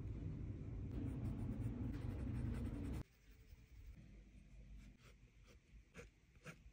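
Coloured pencil scratching on sketchbook paper in a few short strokes near the end. Before that, a steady low rumble runs for about three seconds and cuts off suddenly.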